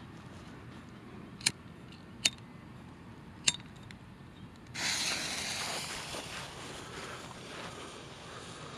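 A disposable lighter clicked three times, then a bottle rocket's fuse catches about five seconds in and hisses steadily, slowly fading.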